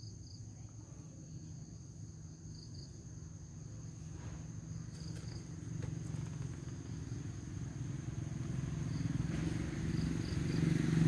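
Outdoor ambience: a steady high insect trill with a few faint short chirps, over a low rumble that grows louder toward the end.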